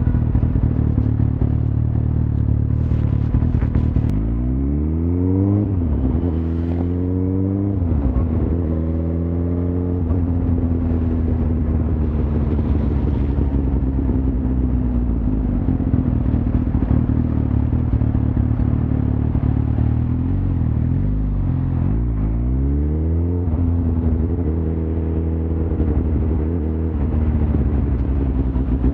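Suzuki GSX-R1000's inline-four engine running under way, its pitch rising and falling back several times as it accelerates through the gears, in bursts in the first third and again near the end.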